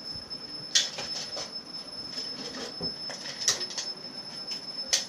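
Handling noises: a few sharp clicks and taps, the loudest about a second in, with light rustling in between, over a steady high-pitched whine.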